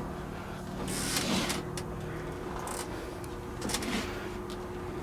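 A steady low hum with a few soft rustles and faint light clicks.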